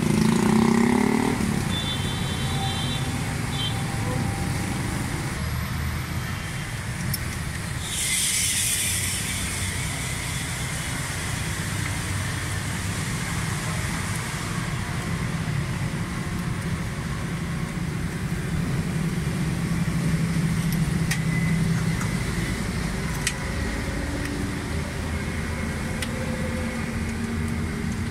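Steady low rumble of motor vehicles running nearby, with a brief hiss about eight seconds in and a few light clicks later on.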